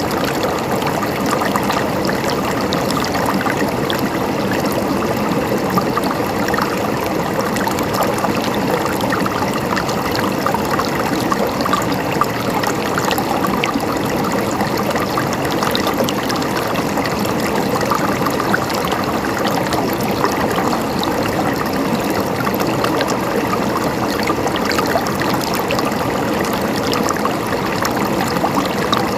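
Running water flowing steadily, a continuous gurgling trickle with no breaks or changes.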